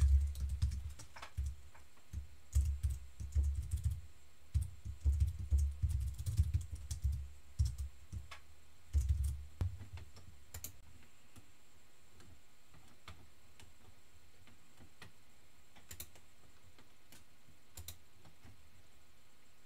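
Typing on a computer keyboard in quick bursts of keystrokes for about the first nine seconds, then only a few single clicks.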